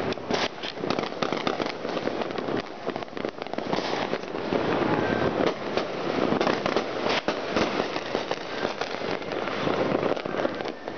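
Many fireworks and firecrackers going off at once: a dense, unbroken crackling and popping with sharp bangs scattered all through it.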